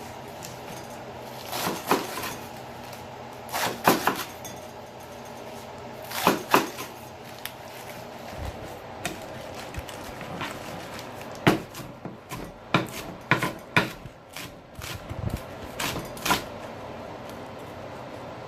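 Kitchen prep clatter: irregular knocks and clinks of utensils, dishes and a bowl being handled, coming in short clusters and growing busier in the second half.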